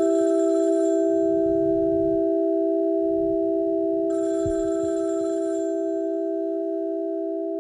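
A steady telephone dial tone that slowly fades out. Twice, about four seconds apart, a short burst of high hiss with a ringing edge rises over it, and there are a couple of soft low thuds.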